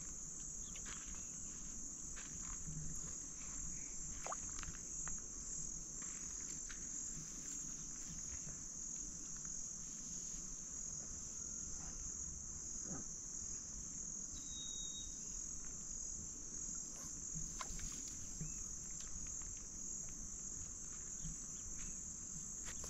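A steady, high-pitched insect chorus chirring without a break, with a few faint ticks and knocks scattered through it.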